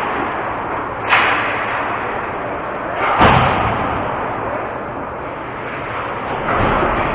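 Ice hockey play in an arena: a steady rink noise, with two sharp cracks that ring out, about a second and about three seconds in, and a duller thump near the end.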